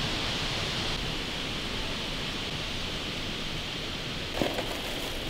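Steady outdoor background hiss, with a faint knock near the end as the leather ammo pouch is handled.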